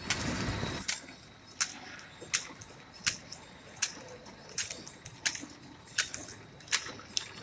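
Automatic pillow packing machine wrapping candy, with a sharp click about every three-quarters of a second, one for each sealed pack. A noisy rush fills the first second.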